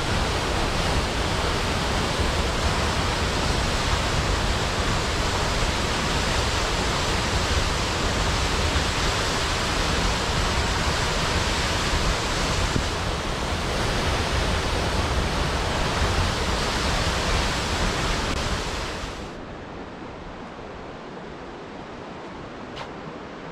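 Steady, loud rushing water noise with no pattern in it; about 19 s in it drops to a quieter, duller rush, with a faint click near the end.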